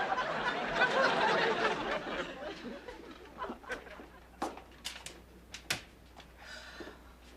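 Studio audience laughing, dying away over the first two or three seconds, followed by a few scattered light clicks and knocks.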